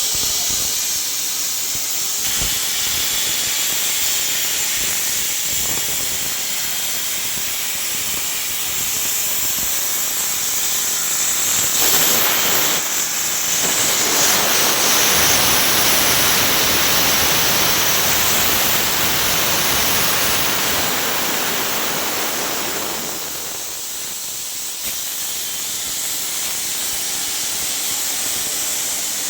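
CNC plasma cutting torch hissing steadily as it cuts. It grows louder and fuller about halfway through, dips briefly, then carries on.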